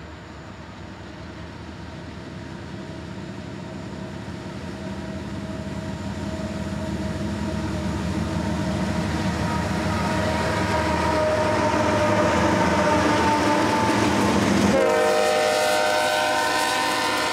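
CSX freight train's diesel-electric locomotives approaching, their engine sound growing steadily louder. Near the end the locomotive air horn sounds a sustained multi-note chord.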